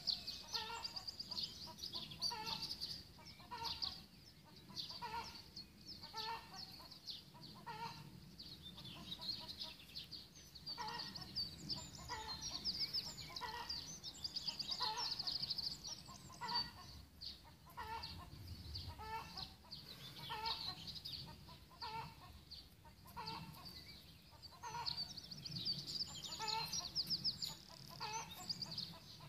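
Outdoor birdsong: a short low call repeated about one and a half times a second, over faster high-pitched trills and chirps from songbirds.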